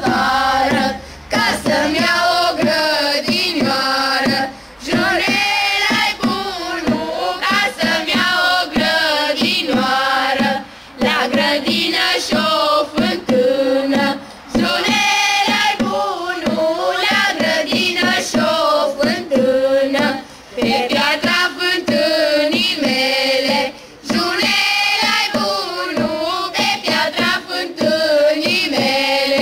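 A group of carolers singing a Romanian colindă (Christmas carol) together, in sung lines broken by short breath pauses every few seconds.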